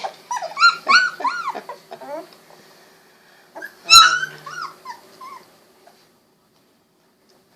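Newborn Golden Retriever puppies, about 16 days old, whimpering and squeaking: a quick run of short high-pitched cries, then one loud cry with a sharp knock about four seconds in, trailing off to quiet.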